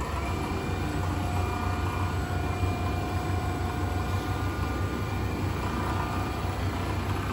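Large-format CNC quilting machine running, its sewing head stitching as it travels along the gantry: a steady machine hum with a few steady whining tones above it.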